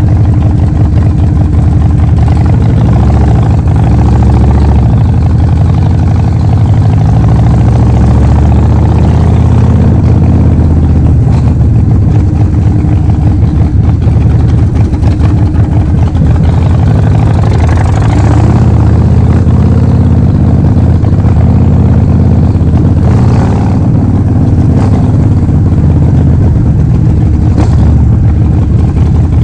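Harley-Davidson Forty-Eight XL1200X's 1200 cc V-twin running loud through a Vance & Hines full exhaust system, engine speed rising and falling a little.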